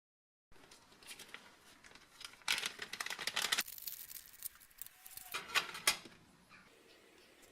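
Workshop handling noises on the restoration of a bolt: irregular clicks and clinks with scraping, louder spells of scraping about two and a half seconds in and again around five and a half seconds.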